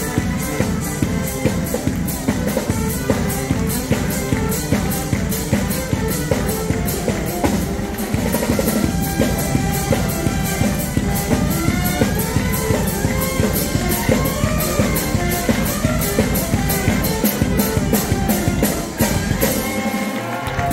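Upbeat dance music with a steady drum beat, which drops away near the end.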